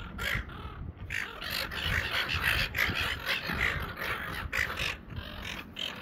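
A flock of seagulls squawking, many short harsh cries overlapping one another, easing off briefly near the end.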